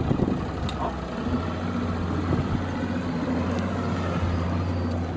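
Inflatable boat's engine running steadily, a low hum that settles about a second in.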